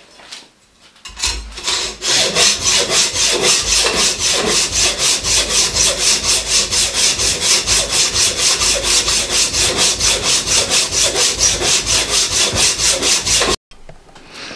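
Hacksaw cutting through a thick steel disc clamped in a bench vise: fast, even back-and-forth strokes that stop suddenly near the end.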